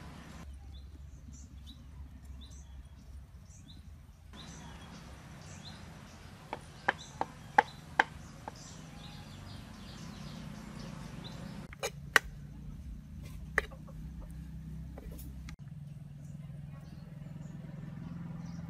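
Sharp taps and knocks against a metal wok on a charcoal stove: a quick cluster of four or five about a third of the way in, and two or three more a few seconds later. Faint bird chirps can be heard in the background.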